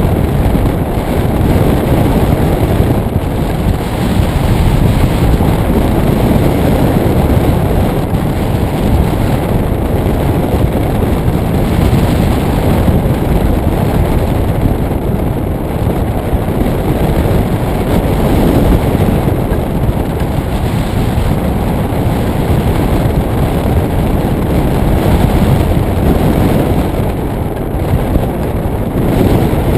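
Steady rush of airflow buffeting the microphone of a camera on a hang glider in flight: loud, low wind noise that swells and eases slightly.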